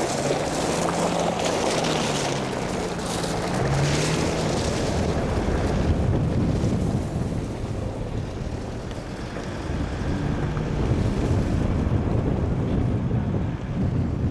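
Vehicles driving along a gravel track: an engine hum with a wavering pitch for the first few seconds, then a heavy low rumble, with wind buffeting the microphone.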